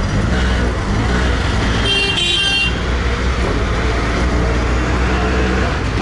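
Auto-rickshaw engine running in road traffic, with a vehicle horn honking briefly about two seconds in.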